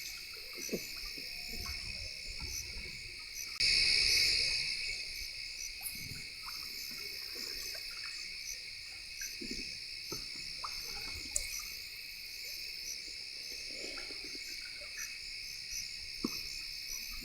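Crickets and other night insects chirping steadily, with scattered faint short calls lower down. About three and a half seconds in, a sudden louder noise starts and fades away over a couple of seconds.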